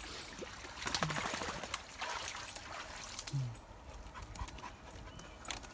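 A dog panting, with scuffing and rustling as it moves about and two brief low sounds, about one second and three and a half seconds in.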